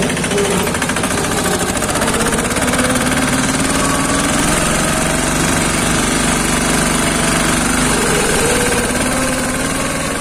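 Single-cylinder Lombardini 510 diesel engine of a two-wheel tractor running steadily under way, with a rapid hard knocking beat and engine speed wavering slightly.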